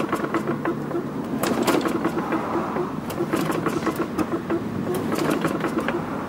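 Tecumseh 4.5 HP four-stroke mower engine being cranked with its recoil starter, chugging over in an even rhythm without catching and running, with scattered clicks.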